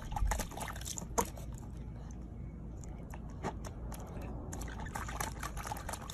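A corgi puppy pawing and splashing in a small plastic tub of water, with repeated sloshing and dripping.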